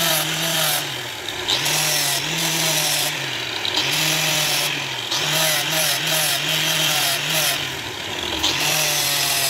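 Angle grinder with a sanding disc running steadily against a steel knife blade. The motor's pitch sags repeatedly as the disc is pressed on and recovers as it eases off, with a scratchy grinding hiss.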